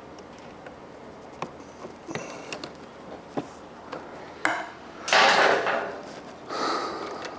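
Hands working on a motorcycle's fairing and mirror mount: scattered light plastic and metal clicks and knocks, then a louder scraping rustle about five seconds in and a shorter one near the end as parts are worked free.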